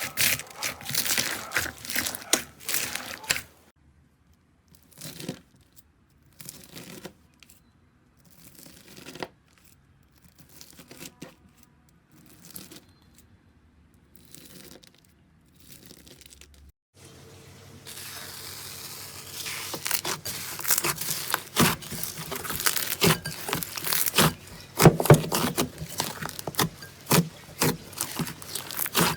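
Slime worked by hand, giving off crackly, crinkly popping and tearing sounds. The crackling is dense at the start, thins to scattered quieter squishes and pops, and turns dense again from a little past halfway.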